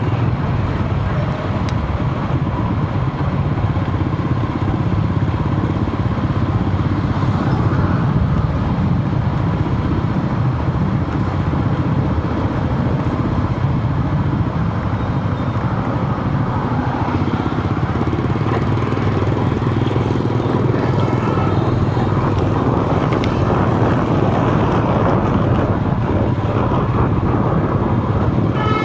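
Steady road noise of motor traffic on a city street, heard from a moving vehicle: a continuous low engine and road rumble.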